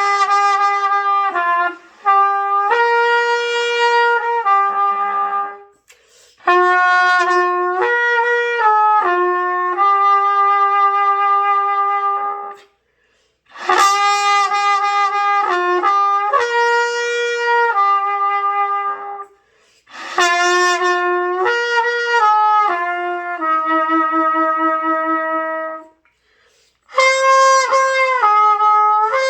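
Trumpet playing a slow hymn melody of long held notes, in four phrases each broken off by a short breath. One low held note near the end of the third phrase wavers.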